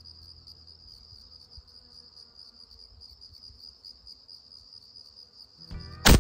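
Steady, rapidly pulsing chirr of insects, then near the end a single sharp, loud shot from a Western Airguns Bush Pig .45-calibre PCP air rifle firing a 275-grain slug on low power, with a brief ringing tail.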